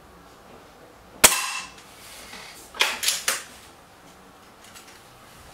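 A single shot from a silenced BSA Lightning SE spring-piston air rifle, a sharp crack with a short ringing tail, a little over a second in. Three quick, quieter clacks follow about a second and a half later.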